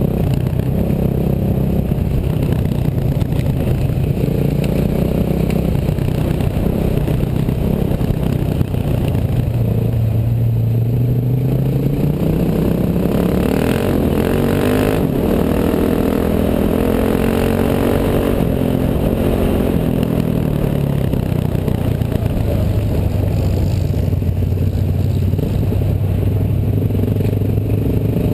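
Engine running steadily, its pitch climbing for several seconds about halfway through, then easing back down.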